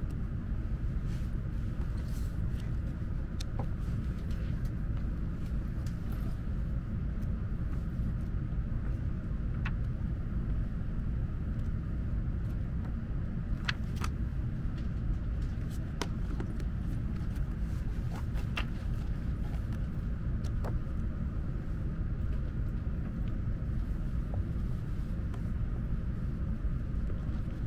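Steady low rumble inside the passenger cabin of an N700S Shinkansen Green car, with a few faint clicks from a magazine's pages being handled.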